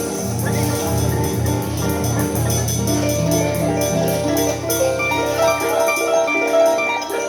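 Harp playing quick runs of plucked notes over deep, sustained bass notes; the bass drops away about six seconds in while the higher notes carry on.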